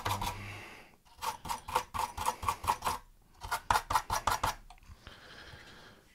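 Brass-bristled brush scrubbing the metal bulb-socket contacts on an instrument-cluster circuit board, in two runs of quick back-and-forth strokes, the first about a second in and the second just past the middle. The contacts are being lightly cleaned bright for new LED bulb bases.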